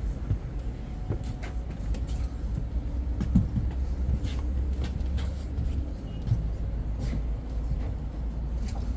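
Steady low rumble of city traffic, with scattered faint clicks and knocks at irregular moments.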